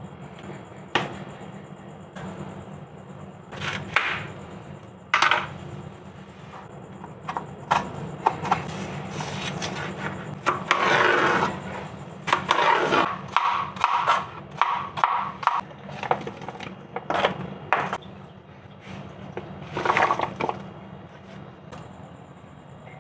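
Kitchen preparation sounds: irregular knocks, clicks and scrapes of utensils handling fruit, with a busier stretch in the middle that includes a quick run of taps, about three a second.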